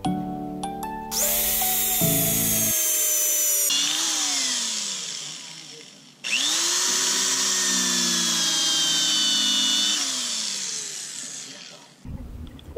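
An electric power tool run twice. It spins up about a second in and runs for about five seconds, cuts off briefly, then spins up again and runs until it winds down near the end. Background music plays under the first couple of seconds.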